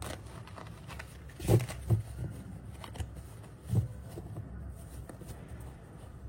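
Tarot deck being shuffled by hand: faint rustling of cards with a few soft taps, the loudest about a second and a half in and again near four seconds.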